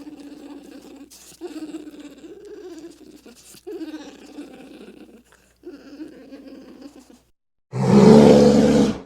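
American black bear vocalizing: a run of drawn-out pitched calls with short breaks between them. After a brief silence near the end comes one much louder roar, lasting about a second.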